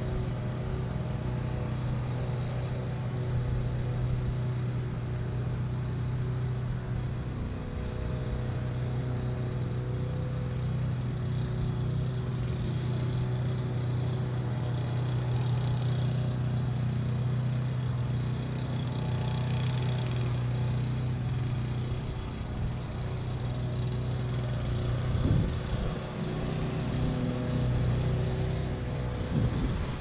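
Steady hum of a Parrot Bebop 2 quadcopter's motors and propellers in flight, wavering briefly in pitch near the end.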